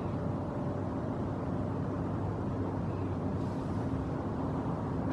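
Car engine idling: a steady low rumble with an even hum.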